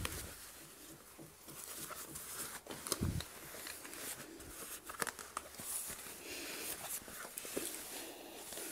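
Faint rustling of a pair of new denim jeans being unfolded and handled, with scattered soft knocks and clicks.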